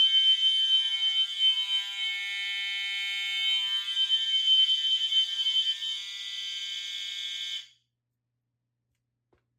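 Fire alarm horns sounding continuously, a steady high-pitched electronic blare with several horns together. It cuts off suddenly about three-quarters of the way through.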